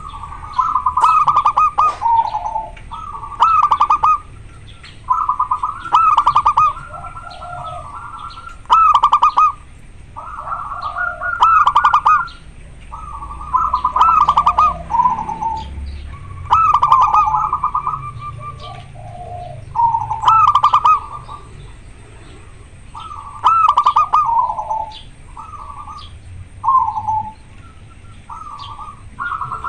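Zebra dove (perkutut) singing its cooing song over and over. Each phrase is a rapid staccato run of notes that ends on lower notes, with a new phrase every two to three seconds. The title takes the song for the sign of a bird in strong breeding condition.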